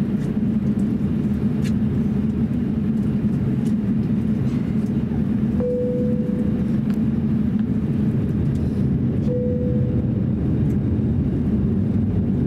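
Airbus A350-900 cabin noise while taxiing: the steady low rumble of the Rolls-Royce Trent XWB engines at taxi power mixed with cabin air, heard from a window seat. Twice, a few seconds apart, a short steady tone sounds over it for about a second.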